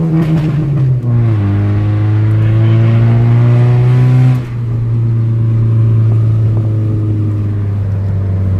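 Car engine running while the car is driven, a steady drone whose pitch drops in steps about a second in and again about four seconds in.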